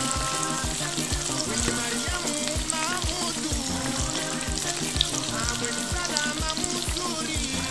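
Ring doughnuts deep-frying in hot oil, a steady sizzle, under background music with a regular beat and a melody.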